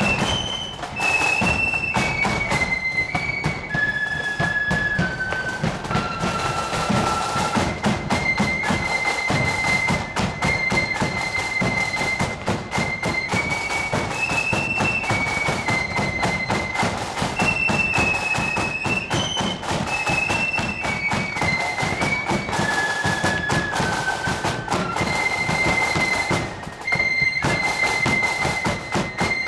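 Marching flute band playing a tune: high flutes carry a melody of held, stepping notes over steady, heavy drum beats.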